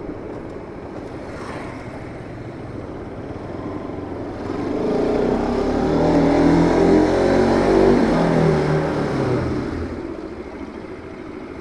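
A motor vehicle's engine running close by, swelling in level over a few seconds and then fading away, as of a vehicle passing.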